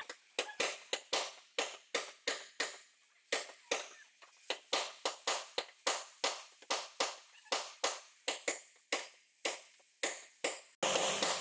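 A hammer tapping on sheet metal in a steady rhythm, about three strikes a second, each ringing briefly, with one short pause. A brief loud rush of hiss comes in near the end.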